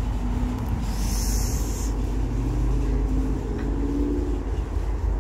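Outdoor traffic noise: a motor vehicle running nearby over a steady low rumble, with a faint engine hum rising and fading in the middle.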